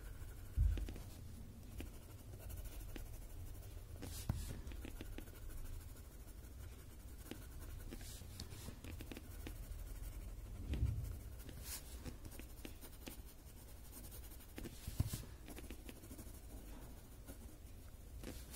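Graphite pencil scratching lightly on a paper tile as shading strokes are laid down, with a few soft knocks on the table.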